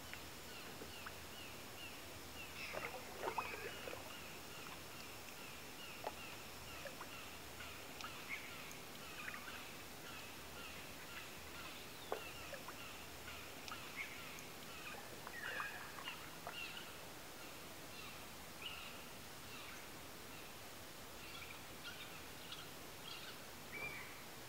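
Quiet canoe paddling on still water: small drips and plinks of water from the paddle, with faint bird calls and chirps over a steady calm background.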